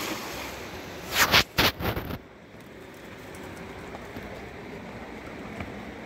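River water flowing steadily over stones, broken about a second in by a loud, short rush of splashing as a hand-thrown cast net lands in the river.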